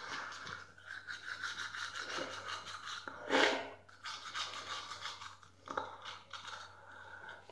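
Manual toothbrush scrubbing teeth in quick back-and-forth strokes, bristles rasping, with one short, louder noise a little over three seconds in.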